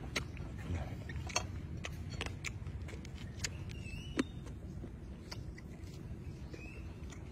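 Small scattered clicks and crackles from hands tearing apart a charred whole grilled frog, over a steady low rumble. A couple of faint short chirps come through in the middle and near the end.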